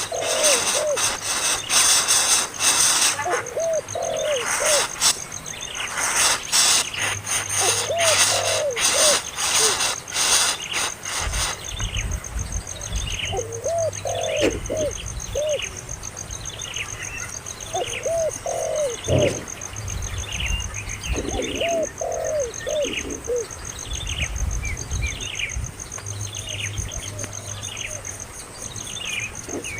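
Birds calling: short, falling high chirps repeated about twice a second, mixed with groups of lower, rounded cooing notes. For the first ten seconds or so, a run of loud rapid clicks or rattles sounds over the calls.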